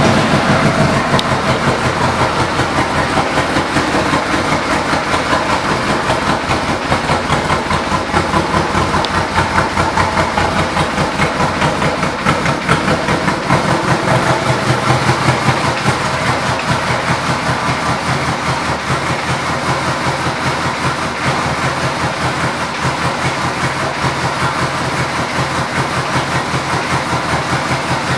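Yamaha Royal Star Venture motorcycle's 1294 cc V4 engine idling steadily with an even, rapid pulse.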